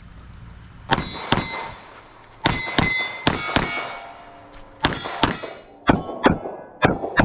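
Pistol fired in rapid pairs at steel targets: about a dozen sharp reports, each with the ringing clang of struck steel plates, and short pauses between the pairs.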